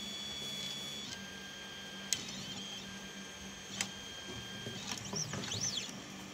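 Stepper motors of a mini CNC engraving machine whining as it plots a PCB with a marker pen. The pitch of the whine jumps as each move changes, with a sharp click about two seconds in and another near four seconds, and a quickly rising and falling whine near the end as the pen traces a curve.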